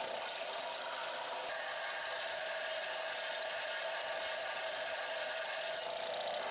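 Bench belt sander running with an 80-grit belt while a steel axe head is pressed against it: a steady abrasive grinding over the motor's hum, rough-sanding away grinder marks. The grinding drops out briefly just before the end as the head comes off the belt, while the sander keeps running.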